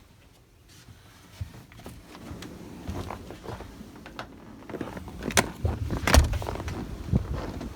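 Clicks and knocks of a door being handled and opened, with two sharper knocks about two-thirds of the way in. Wind begins buffeting the microphone with a low rumble in the second half.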